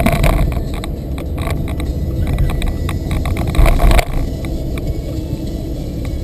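Road and engine noise heard inside a moving car: a steady low rumble with light clicks and rattles, and a heavier low thump about three and a half seconds in.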